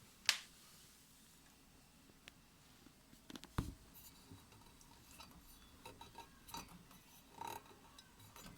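A few scattered sharp clicks and a dull thump against quiet room tone. The loudest click comes about a third of a second in, and the thump about three and a half seconds in.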